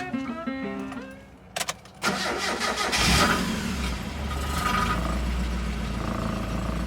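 Mazda Miata NA6's 1.6-litre four-cylinder engine being cranked by the starter and catching about three seconds in, then running at a steady idle. The car has more than 370,000 miles on it.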